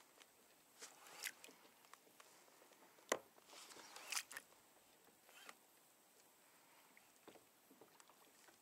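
Near silence on a fishing kayak, broken by a few faint clicks and knocks. The sharpest comes about three seconds in, and a short cluster follows about a second later.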